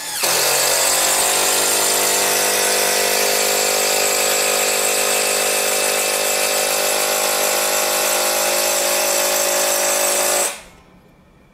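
Mollar CIDR12150U 12-volt cordless impact driver hammering a long 8 cm wood screw into jati Belanda wood without a pilot hole: a very loud, steady hammering for about ten seconds, which stops abruptly.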